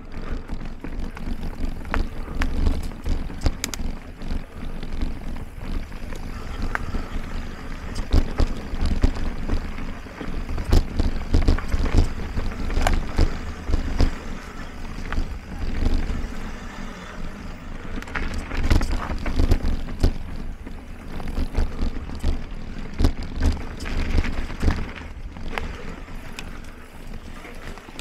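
Mountain bike riding over dirt singletrack: a steady low rumble of tyres and frame on the trail, with frequent irregular knocks and rattles as the bike runs over roots and rocks.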